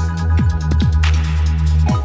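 Electronic dance music with a heavy sustained bass, short downward-sweeping bass hits and a steady drum beat; the bass drops out at the very end.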